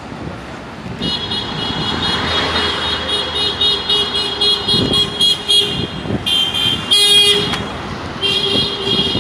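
A high-pitched electronic alarm tone sounding in rapid pulses over road traffic noise, with longer, louder bursts around two-thirds of the way in and again near the end.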